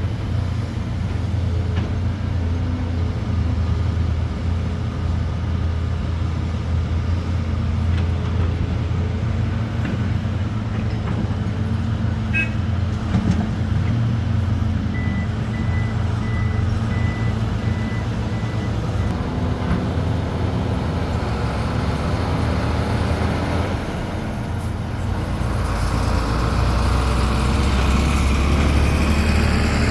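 Heavy diesel engines of construction machinery, the big excavators and dump trucks, running with a steady low drone. About halfway through, a rapid high beeping lasts a few seconds. Near the end the engine note drops lower as a rushing noise grows.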